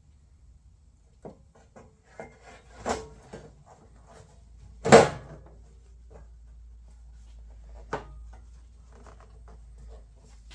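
A series of irregular knocks and clunks of parts being handled and set down on a workbench, the loudest about five seconds in, with a smaller one near three seconds.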